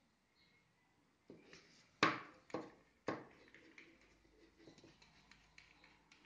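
Plastic micro-drip irrigation tubing and a small plastic fitting handled in gloved hands: a few sharp plastic clicks and knocks about two to three seconds in, the loudest about two seconds in, then light ticking and rubbing.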